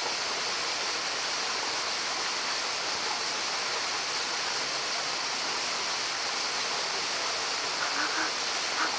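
Steady rushing of stream water, an even hiss with no break, with a few faint short sounds near the end.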